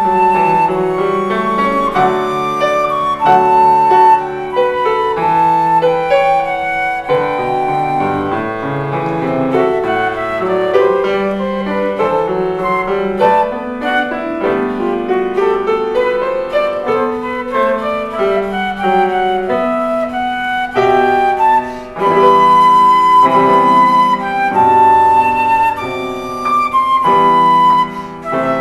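Instrumental music: a held-note melody over a lower accompaniment, with a rising run of notes about halfway through and a brief drop in level shortly before the last quarter.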